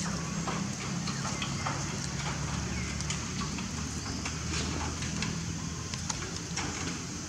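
Dry fallen leaves crackling and rustling in scattered short clicks as monkeys move over them, over a steady low rumble.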